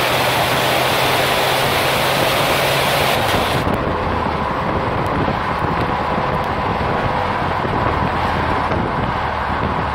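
Stock exhaust of a 2003 Chrysler Town & Country's 3.8-litre V6, heard at the tailpipe while the minivan drives, mixed with wind and road rush. About three and a half seconds in, the engine note drops lower and the high hiss falls away.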